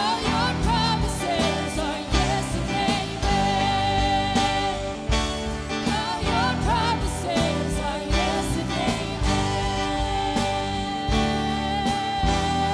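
Live worship band: singers carrying a sustained melody with vibrato over electric and acoustic guitars, with a steady beat underneath.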